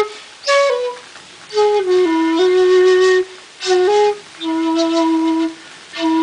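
A 1.9 shakuhachi, the Japanese end-blown bamboo flute, playing slow phrases of held notes that step and slide between pitches, broken by short pauses for breath. A long low note is held about halfway through, and a new phrase starts near the end.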